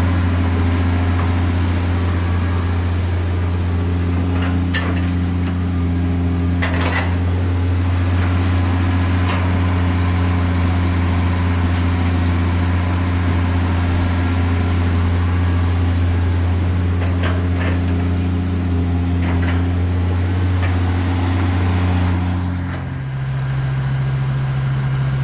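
Heavy diesel engine running steadily with a low, even hum; its pitch steps up near the end. A few short knocks and clatters come a few seconds in and again past the middle.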